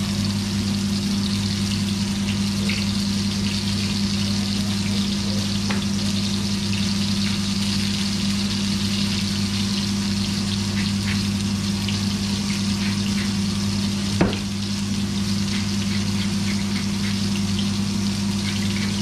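Burger patty sizzling in a frying pan, a steady hiss with small crackles, over a steady low hum. A single knock about fourteen seconds in.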